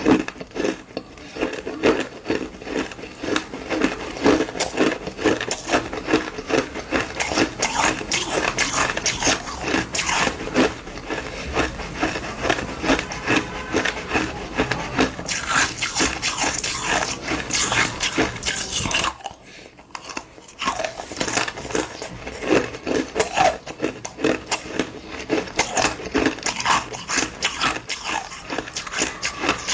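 Ice being chewed close to the microphone: dense, rapid crunching, with a brief pause about two-thirds of the way through.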